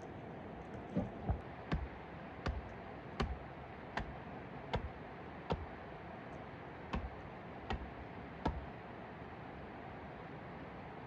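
A series of sharp, short knocks, roughly one every three-quarters of a second with a couple of pauses, over a steady hiss.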